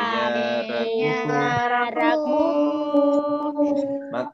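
Voices singing the lesson's Arabic vocabulary together in a chant-like melody, with long held notes in the second half, heard over a video call.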